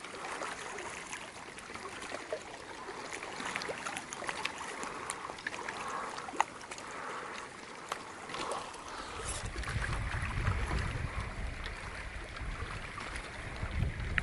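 Water lapping on a freezing lake, with scattered light clicks and tinkles of thin, broken-up ice. Wind buffets the microphone in the latter part.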